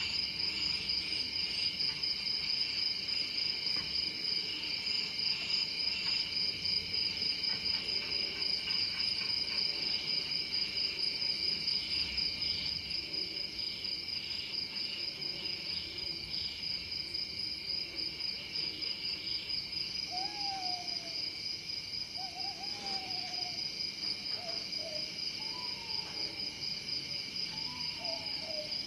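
Steady high-pitched chirring of crickets, a night-insect chorus that runs without a break. In the last third a few short falling hoots come in, one after another.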